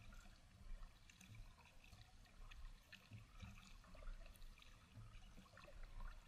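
Faint water sounds of a kayak paddle on calm water: small splashes and trickles as the blades dip in and drip, with scattered light ticks.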